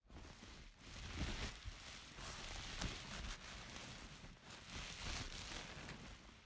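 Plastic sheeting and bubble wrap crinkling and rustling with body movement, a dense steady crackle that swells and eases.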